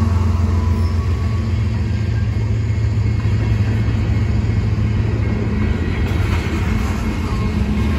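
CSX freight train rolling past close by: the diesel locomotive's engine tone drops away right at the start, leaving the steady low rumble of a tank car and covered hopper cars going by on the rails.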